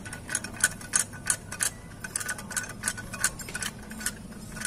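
Light metallic clicks and taps, irregular at a few a second, as a hand works a splined steel shaft at the opened clutch side of a Honda EX5 Dream engine.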